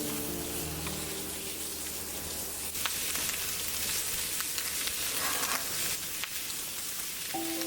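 Food sizzling in a pan: a steady hiss with scattered pops and spits. Background music fades at the start and comes back near the end.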